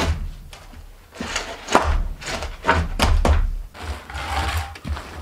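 Wooden pallets being shifted and set down on a dirt floor: a series of wooden knocks and thuds, the loudest about two seconds in, with a rougher scraping sound about four seconds in.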